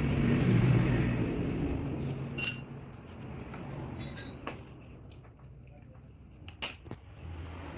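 A low rumble that fades over the first few seconds, then a few sharp metallic clinks and knocks, like tools or parts being handled.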